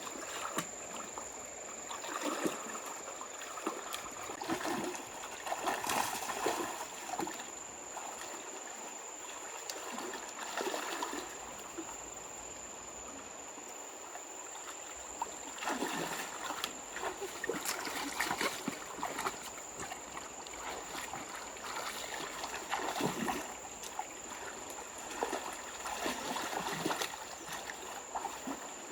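Water splashing and sloshing in irregular bursts over a steady trickling flow, with a thin, high, steady whine throughout.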